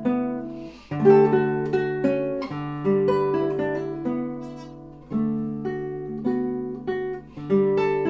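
Classical nylon-string guitar played fingerstyle: slow phrases of plucked notes, each left to ring and die away over a held bass note, with a brief break a little before one second in.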